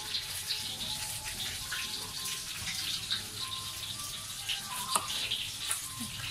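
Knife cutting through a lime onto a wooden chopping board, one sharp knock about five seconds in, over a steady background hiss.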